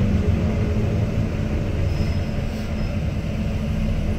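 Steady low drone of an ADL Enviro400MMC diesel double-decker bus running, heard from inside the passenger saloon.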